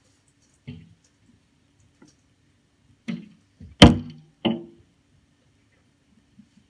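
Footsteps crunching in snow close to the microphone: one light step about a second in, then three heavier steps at a walking pace, the middle one loudest.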